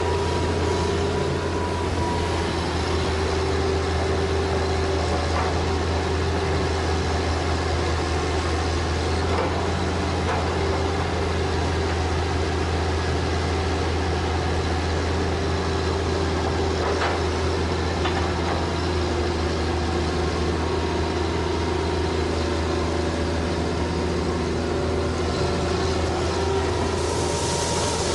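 Hitachi excavator's diesel engine running steadily, with a few faint knocks and a brief hiss near the end.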